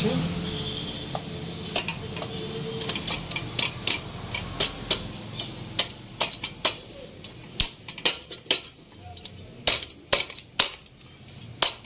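Irregular metallic clinks and taps as a Yamaha RX135's finned cylinder barrel is worked down over the piston and its rings onto the crankcase studs. The taps start about two seconds in and come in quick clusters.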